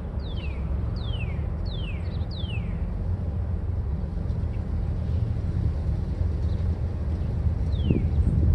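Low steady rumble that slowly grows louder. A bird whistles four descending notes, one about every 0.7 s, in the first few seconds, and one more near the end.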